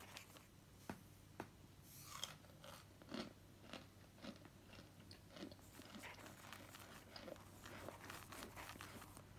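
Fingers crushing and crumbling chunks of dry starch: faint, irregular crunches with a few sharper snaps.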